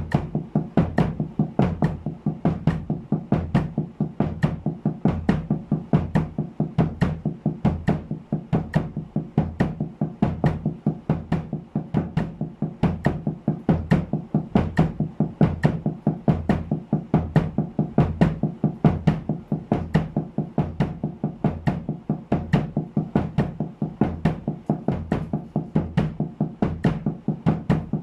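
DW snare drum, partly muffled by a towel over its head, played with sticks in a steady, even run of double strokes in sixteenth notes at 70 bpm. Each group ends with two bass-drum kicks on the last two sixteenths.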